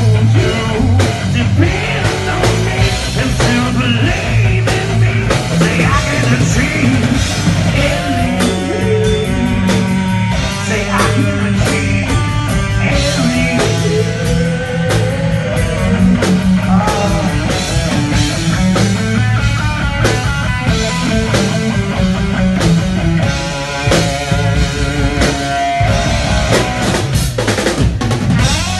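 Rock music played by a band: drum kit, guitar and a singing voice over a steady beat.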